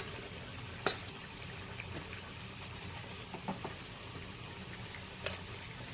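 A ladle clicks lightly against a steel plate a few times, a sharp click about a second in and softer ones later, over a low steady hiss, as portions of boiled rice vermicelli are set on the plate.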